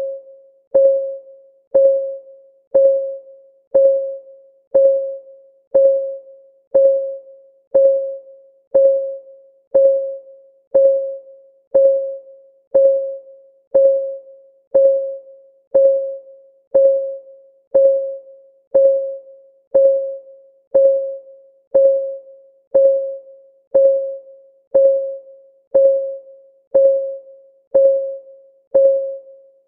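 Countdown timer's clock-ticking sound effect: a short, pitched, keyboard-like tick once every second, each dying away quickly, with a fainter tick in between, keeping a perfectly steady beat.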